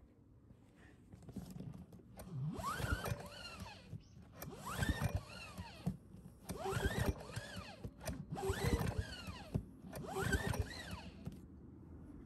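EENOUR DK3000iSDF inverter generator being pull-started: five pulls of the recoil starter about two seconds apart, each a whir that rises and falls in pitch as the rope is drawn and the engine turns over. The engine does not catch.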